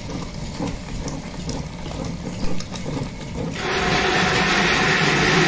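Stone wet grinder churning thick red chilli paste: the rotating steel drum and stone roller give a steady mechanical rumble with small irregular clicks. About three and a half seconds in, a louder steady hiss joins it.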